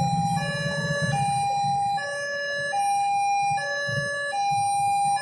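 Railway level-crossing warning alarm sounding its electronic two-tone signal, a higher and a lower tone alternating steadily, each held a little under a second, over the low rumble of traffic waiting at the crossing. It signals that a train is approaching and the barrier is closed.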